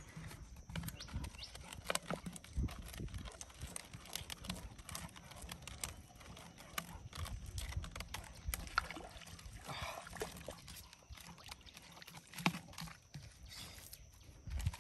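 Handling noise from a plastic bottle fishing trap and its string line: irregular light clicks and taps, soft low thumps and a brief rustle about ten seconds in.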